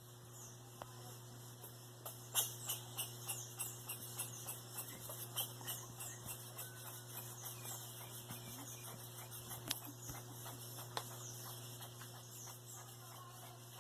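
Small animals gnawing: a rapid, irregular run of sharp clicks and scrapes, densest in the first half, over a steady low hum.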